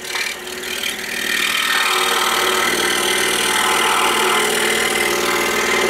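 Excalibur scroll saw running and cutting a ring out of a wooden basket blank, a steady machine hum with the blade rattling up and down. The sound builds over the first second or two, then holds steady.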